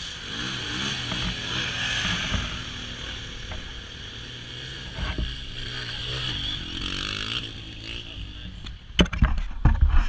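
Side-by-side UTV engine running through mud, its pitch rising and falling as the throttle changes, with a hissing spray under it. Near the end, loud irregular thumps and buffeting take over.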